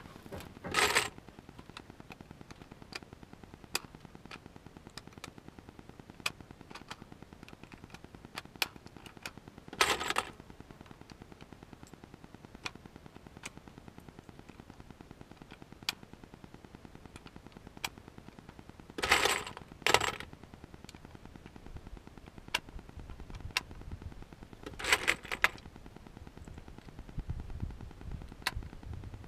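Small metallic clicks and rattles of cartridges being handled and pressed into an AR-15 magazine, with a few short, louder rattling clusters spread through.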